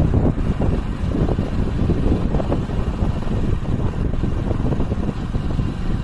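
Wind rushing over the microphone of a moving vehicle, with road and vehicle noise beneath: a loud, uneven low rumble that flutters constantly.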